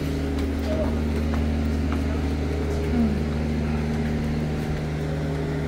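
Volkswagen-based Rialta motorhome's engine running steadily: a low, even hum.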